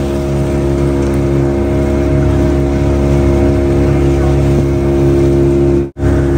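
Outboard motor of a small motorboat running steadily at cruising speed, with water and wind rush from the moving boat; the sound briefly cuts out near the end.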